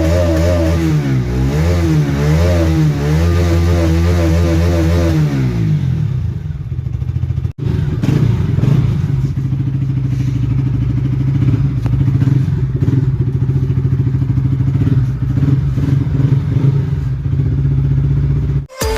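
Bajaj Pulsar RS200 motorcycle engine, blipped up and down in quick revs for about five seconds, then settling to a steady idle. The sound cuts out for an instant about seven seconds in, then the engine idles steadily.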